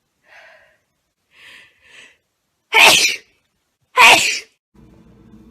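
A woman sneezing twice, loudly, a little over a second apart, after a few faint sounds.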